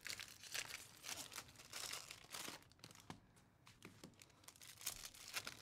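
Foil trading-card pack wrapper being torn open and crinkled by hand: faint, scattered crackling and tearing that grows sparser and quieter partway through.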